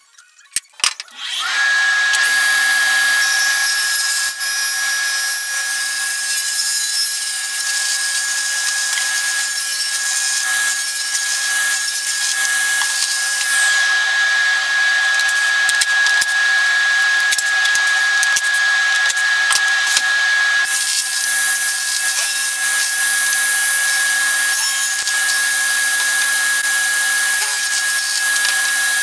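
Table saw running steadily under power, a constant loud motor-and-blade noise with a steady high whine. The sound changes for several seconds about halfway through.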